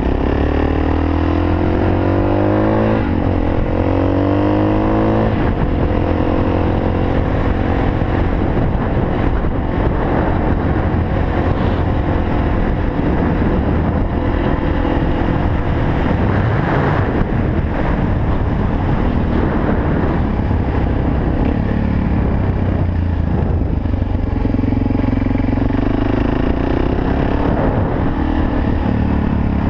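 Suzuki DR-Z400's single-cylinder four-stroke engine accelerating through the gears, its pitch rising twice with upshifts in the first few seconds, then pulling steadily at road speed with wind noise.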